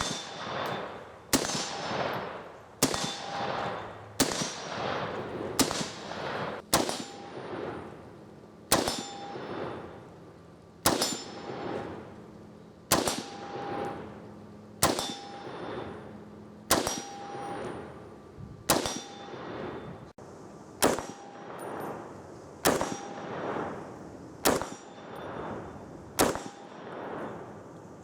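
Slow, steady semi-automatic fire from a DPMS LR-308 .308 Winchester rifle, a shot every one and a half to two seconds, each with a long echoing tail. Most shots are followed by a brief metallic ring of a steel target being hit.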